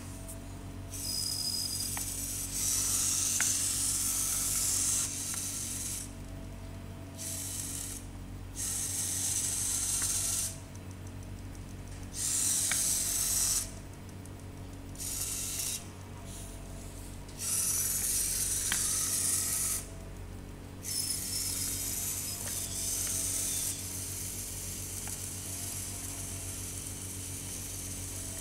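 Small electric drive motors of a two-wheeled robot car whirring in bursts of one to three seconds, switching on and off repeatedly as the car is commanded by infrared remote to go forward, back, turn and stop. A few light clicks fall between the bursts.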